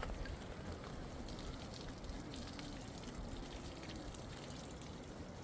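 Water splashing and trickling in small irregular drips and pours over a steady noisy background.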